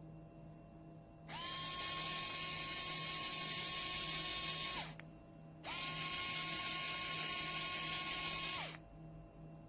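Rechargeable mini electric drill pen running twice, each run about three seconds: its small motor spins up quickly to a steady high whine, then winds down when switched off.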